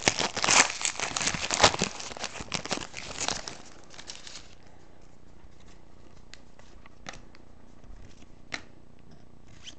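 A trading card pack's wrapper crinkling and tearing open for about the first four seconds, then a few faint scattered clicks as the cards are handled.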